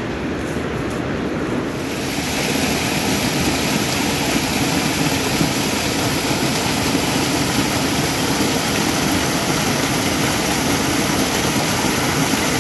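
Small mountain waterfall pouring into a rocky pool, a steady rushing of water that grows louder about two seconds in.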